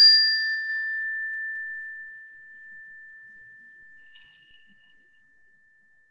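A meditation chime struck once, its clear ringing tone fading slowly over about five seconds until it can barely be heard. It is the cue in a mindfulness exercise to listen until the sound is gone.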